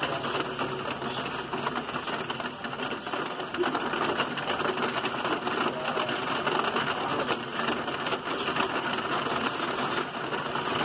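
Heavy rain mixed with small hail pattering on a paved driveway: a dense, steady hiss of many tiny hits.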